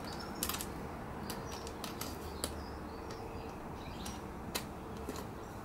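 Scattered light metallic clicks and taps, about seven, as a nut is threaded by hand onto a bolt of a tent flashing kit's metal clamping ring.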